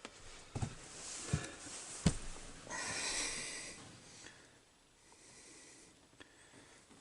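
Three sharp clicks of small hand tools being handled in the first two seconds, then a long breathy exhale about three seconds in.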